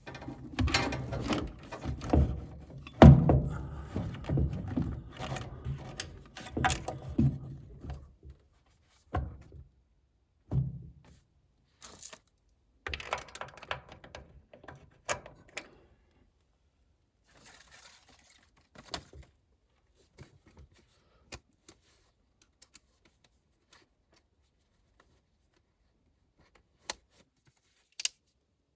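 Clinks, knocks and rattles of hand tools and small metal furnace parts being handled. They come thick for about the first eight seconds, then thin out to scattered single clicks with long quiet gaps.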